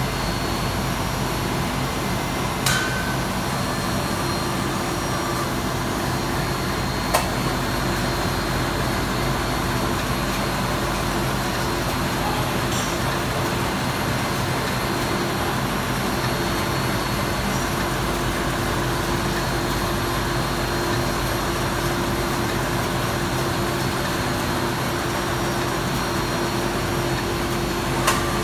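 Automated brush-making machine running steadily as it fills a cylindrical roller brush with filament tufts: an even mechanical hum and hiss, with a single sharp click about 3 s in, another about 7 s in, and one near the end.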